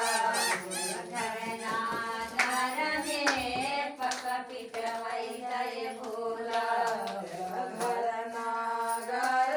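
Group of women singing a devotional bhajan to Bholenath together, with hand clapping along.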